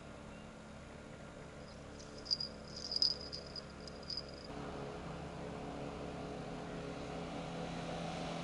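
A few short high chirps from a small bird. From about halfway, a boat's motor runs steadily and slowly grows louder.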